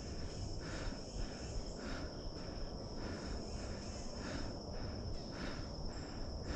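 Insects chirring in the woods: a steady high buzz that swells and fades about twice a second.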